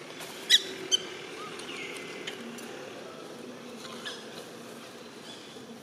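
Baby long-tailed macaque giving two short, high squeaks about half a second apart, followed by a few fainter chirps.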